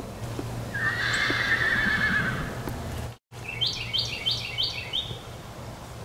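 A long wavering animal call lasting about a second and a half. After a brief break in the sound comes a quick series of five short, high calls.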